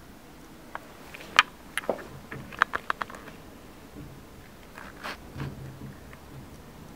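A quick run of sharp clicks and taps, loudest about a second and a half in and again a little after, then a few fainter taps near the end.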